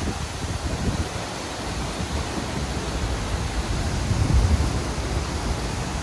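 Steady rushing noise of a waterfall, with uneven low gusts of wind buffeting the microphone, strongest about four seconds in.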